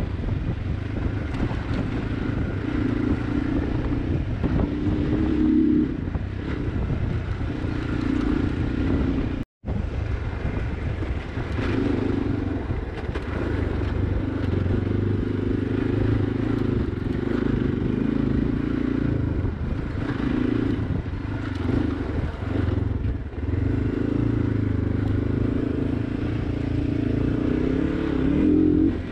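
Zongshen RX3 250 cc single-cylinder motorcycle engine running under way on a dirt mountain track, its note rising and falling as the throttle is worked. The sound drops out for an instant about a third of the way in.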